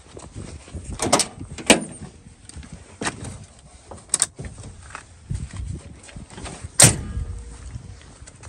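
A handful of sharp knocks and clicks from a 1970s Ford Mustang II's door being opened and shut, the loudest about a second and a half in and again near seven seconds.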